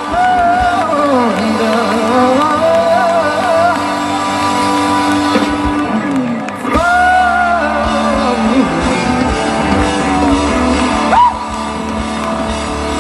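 Live rock band playing, with a lead melody of bending, sliding notes over a steady backing. The sound dips briefly about six and a half seconds in before the next phrase starts.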